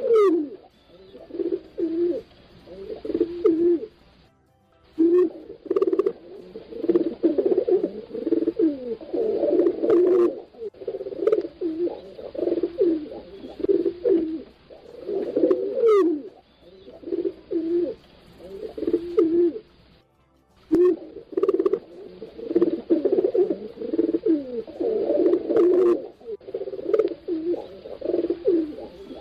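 Pigeons cooing, several at once, their low, repeated coos overlapping almost without pause. The cooing breaks off twice for a moment.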